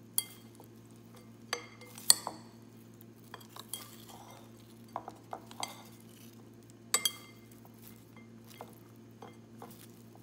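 Wooden chopsticks and a fork tossing a herring salad in a glass bowl, clinking and tapping against the glass at irregular intervals. The loudest knocks come about two seconds in and again about seven seconds in.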